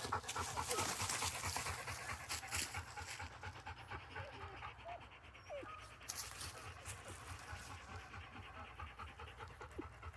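Labrador retriever panting close by, quick and steady.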